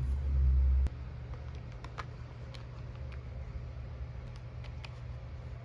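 Scattered light clicks and taps of the plastic lids on a pet treat-puzzle tray being knocked about, with a low rumble for about the first second.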